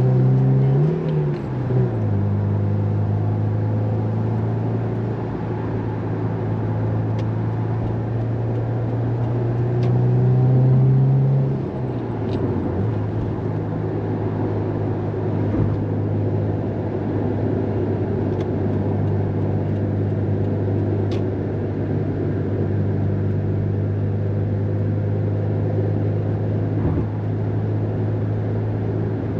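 Subaru WRX STI's turbocharged flat-four engine heard from inside the cabin while driving, a steady drone over road noise. Its pitch shifts about a second in, builds slowly and gets louder until about eleven seconds in, then drops back and holds steady.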